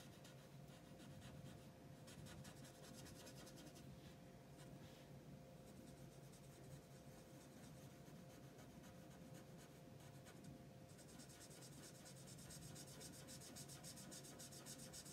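Faint scratching strokes of a Spectrum Noir alcohol marker nib colouring on paper.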